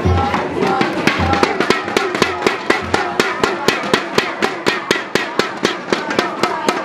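Football supporters drumming and chanting: a fast, even beat of sharp strikes, about five a second, with deep bass-drum hits in the first three seconds and wavering chant tones over the top.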